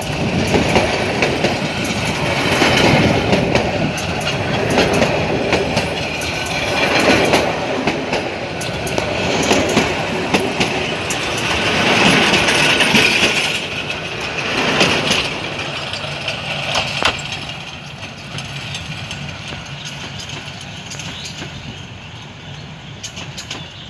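Bangladesh Railway's Brahmaputra Express train running on the track, its wheels clicking over rail joints; the sound dies away over the last several seconds.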